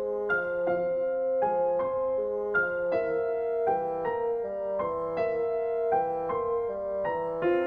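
Background music: a gentle melody of single notes at an even pace, several a second.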